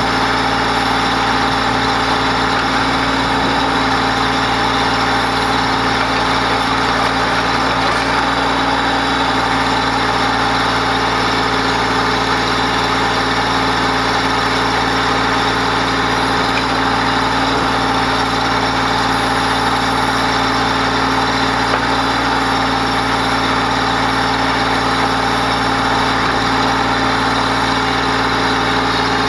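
Mahindra Max 28XL compact tractor's diesel engine running at a steady speed, with no revving.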